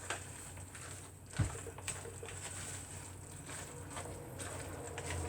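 Quiet kitchen handling sounds over a faint steady low hum: a few small clicks and ticks, and a soft thump about a second and a half in.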